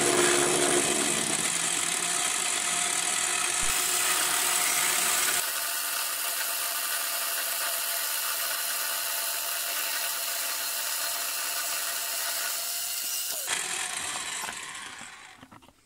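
A Parkside direct-drive pillar drill turning a 3- or 4-flute end mill through aluminium, with an electric drill driving the XY table's feed screw: a steady whine from the motors with the noise of the cut, a bit chattery. It drops in level about five seconds in and dies away near the end.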